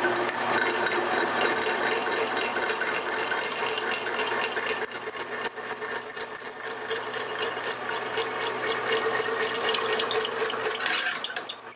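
Hole saw cutting a fish-mouth notch in subframe tubing, a steady machine-driven cutting noise over a motor hum, with an uneven stretch about five seconds in.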